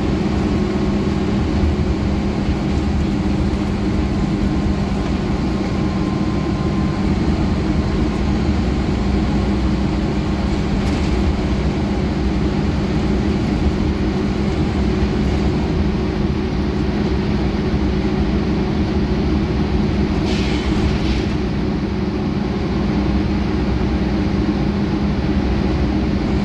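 Scania N94UB single-deck bus under way, heard from inside the saloon: the rear-mounted diesel engine runs with a steady low drone, mixed with road and body noise. About twenty seconds in there is a brief higher-pitched noise.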